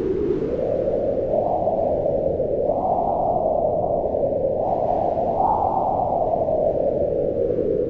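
Howling wind in a snowstorm blowing steadily, its hollow howl rising in pitch with gusts about a second and a half in, around three seconds and again past five seconds, then easing back down.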